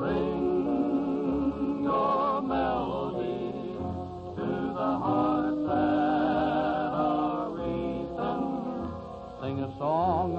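Western male vocal group singing in close harmony, holding long notes with vibrato over a band.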